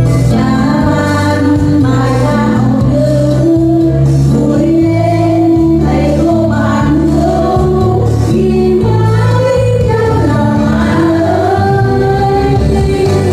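A Vietnamese song played loudly: a sung vocal melody over instrumental accompaniment with a steady bass line.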